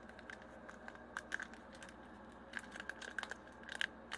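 Foil Pokémon booster pack wrapper crinkling and tearing in the hands as it is opened, a scatter of short crackles with the loudest cluster near the end.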